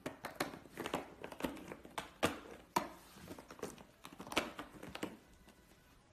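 Cats pawing at a plastic ball-track toy with a cardboard scratch pad in the middle: irregular plastic clattering and knocks mixed with scratchy rustling, stopping about five seconds in.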